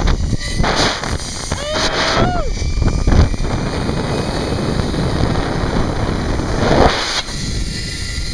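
Wind rushing over the microphone of a camera riding a fast zip line, a loud steady roar with stronger gusts, the trolley running along the steel cable beneath it.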